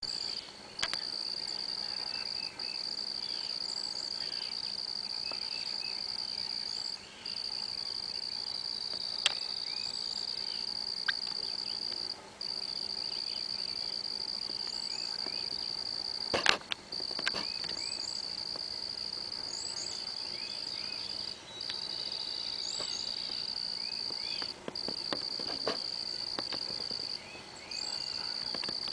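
Insect chorus with a steady high-pitched trill that drops out briefly every few seconds, with scattered short chirps over it and a sharp click about halfway through.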